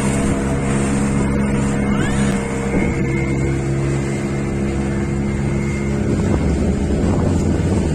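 Motorboat engine running steadily under way, a droning note with the rush of water and wind over it; the note shifts slightly about three seconds in.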